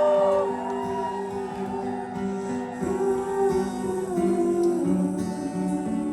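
Live band music: a guitar playing an instrumental passage of held notes and changing chords, with no singing.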